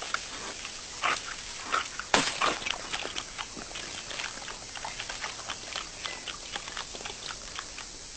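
Cartoon chewing and crunching sound effects for a chameleon eating a red butterfly: a few loud crunches in the first two and a half seconds, then a run of quick small clicks, several a second.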